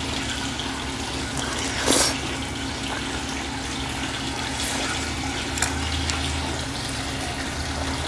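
Person eating bibimbap with a metal spoon, with a couple of short clicks and a brief louder scrape about two seconds in, over a steady background hiss and low hum.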